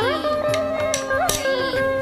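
Carnatic music for Bharatanatyam dance: a melody that glides in pitch over a steady drone, punctuated by sharp percussive strikes.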